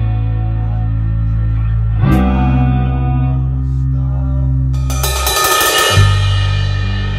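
Music with guitar over held bass notes. The chord changes about two seconds in. Near the end the bass drops out for a moment while a bright cymbal-like wash comes in.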